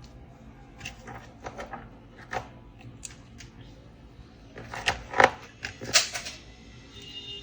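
Scattered sharp clicks and knocks from handling laptop parts, the loudest few about five to six seconds in.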